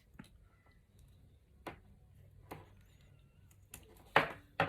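A few scattered light clicks and scrapes from a flat-blade screwdriver and loose Cat6 wire pairs being handled as the wires are straightened. The loudest two come near the end.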